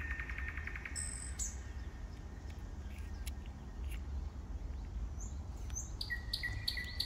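Small birds chirping. A rapid trill comes at the start and several short whistled chirps come near the end, over a low, steady rumble.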